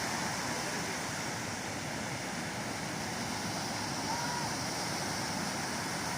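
Ocean surf breaking and washing on the beach, a steady noise.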